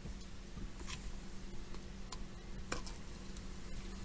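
A few light clicks and taps from an aluminium soda can and plastic cups being handled on a table, the sharpest near the end as the can is tipped to pour, over a steady low room hum.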